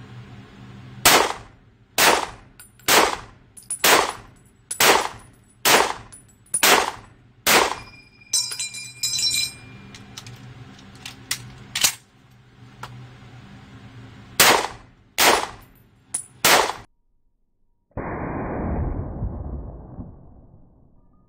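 Springfield M1 Garand in .30-06 firing eight semi-automatic shots about one a second, echoing in an indoor range. The eighth shot is followed by the ringing ping of the empty en-bloc clip being ejected. After a few clicks as a fresh clip is loaded and the bolt closes, four more shots are fired; near the end a rushing noise fades out.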